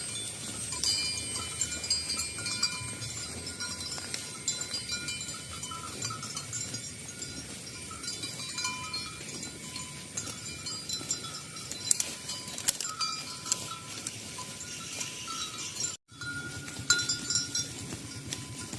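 Many bells on a herd of cattle clinking and ringing over each other, with a few steady high ringing tones. The sound cuts out briefly near the end.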